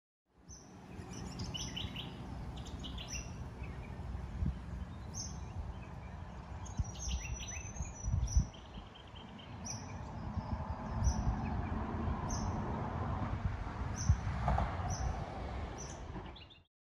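Birds chirping: short high chirps that repeat roughly once a second, mixed with quick clusters of falling chirps, over a low, uneven rumble.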